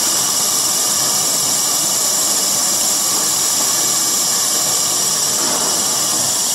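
Single-screw fish feed pellet extruder and its belt-driven electric motor running: a loud, steady hissing machine noise.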